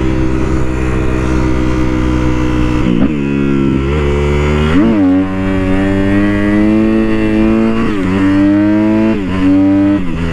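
Sportbike engine pulling under way, its pitch climbing and then breaking sharply several times as it shifts through the gears, with wind rumble on the microphone.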